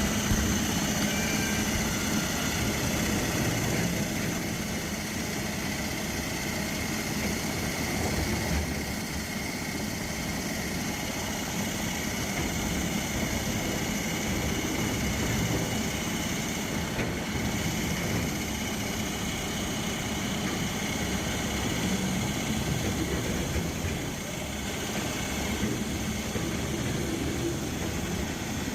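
Remote-controlled core drilling rig running steadily, its engine holding an even note.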